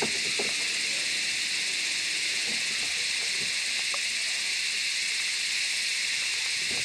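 Steady, high-pitched drone of a rainforest insect chorus, unchanging in level, with faint scattered low sounds beneath it.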